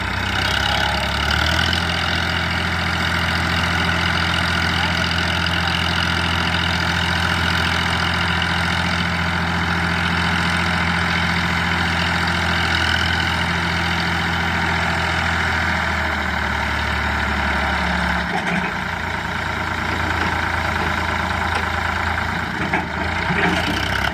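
Diesel engine running steadily at a low idle, its deep note changing about eighteen seconds in.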